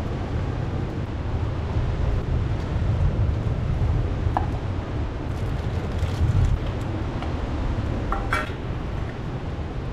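Low rumbling wind and ocean surf echoing into a sea cave, with a couple of short sharp clicks about four and eight seconds in.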